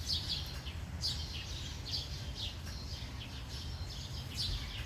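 Birds chirping in short, quick, repeated calls over a low steady rumble.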